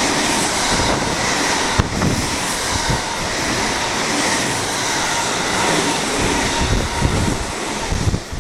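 Electric train running past on the station track: a loud, steady rush of wheels and air, with a few sharp knocks about two and three seconds in and low thumps near the end.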